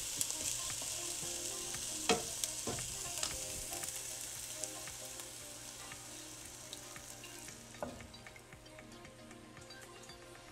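Egg whites and sautéed onions and mushrooms sizzling in an oiled frying pan, the sizzle fading steadily. A few sharp clicks sound over it, mostly in the first few seconds.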